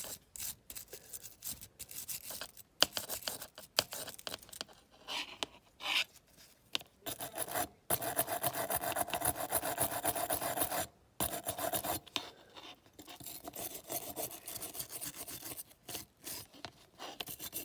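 Wire brush scrubbing a die-cast metal toy car body in short, rapid scratchy strokes with brief pauses, with one longer unbroken stretch about eight seconds in. It is scouring off red paint that has been softened by a caustic soda soak.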